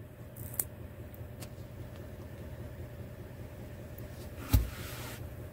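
Steady low hum of the Chevrolet Silverado 2500's 6.6-litre Duramax turbo-diesel idling, heard inside the cab, with a couple of light clicks near the start and one sharp thump about four and a half seconds in.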